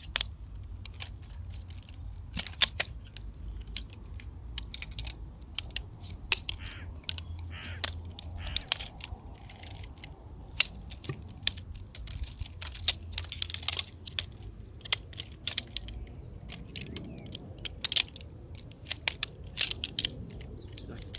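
Metal poles of a lightweight folding camping chair frame clicking and clacking as they are pulled apart and folded together, many sharp knocks at irregular intervals over a steady low rumble.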